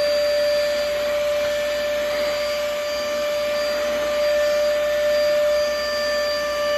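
Siumxr cordless handheld vacuum cleaner running steadily: a constant motor whine over the rush of air through its suction.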